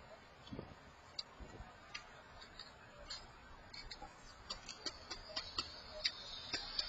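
Birds pecking at seed at a feeder: faint, irregular light clicks and ticks that come more often toward the end.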